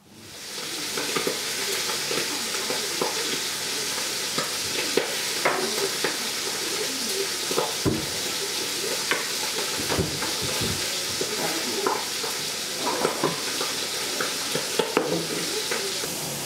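Meat frying in a pan: a steady sizzle that fades in over the first second, with scattered clicks and scrapes of a utensil against the pan.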